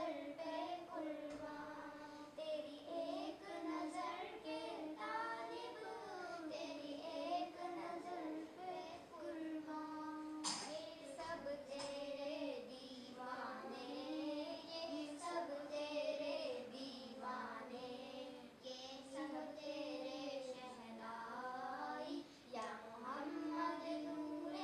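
A small group of young girls singing a naat together, unaccompanied, with long held notes that waver and glide. A brief sharp click sounds about ten seconds in.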